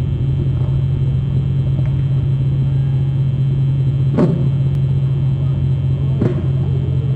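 Steady low rumbling hum, with two short knocks about four seconds and six seconds in.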